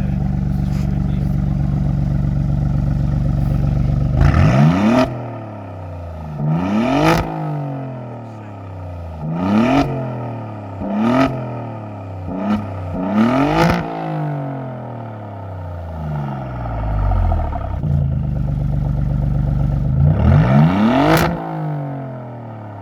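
Alfa Romeo Giulia GTAm's twin-turbo V6 running through an Akrapovič exhaust: a steady idle, then about seven sharp free revs, each climbing quickly in pitch and dropping back to idle, the last near the end after a few seconds of idling.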